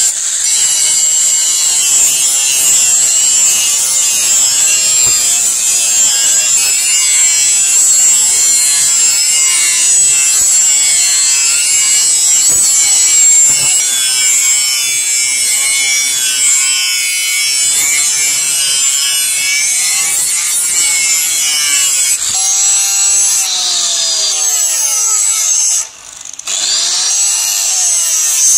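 Electric angle grinder with a flap disc grinding a steel knife blade: a steady high motor whine over a harsh grinding hiss. Near the end the pitch wavers, the sound drops away for a moment, then picks up again.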